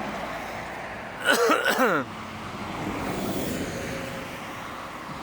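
Steady road traffic noise beside a busy road, with a brief loud sound whose pitch falls steeply, about a second in.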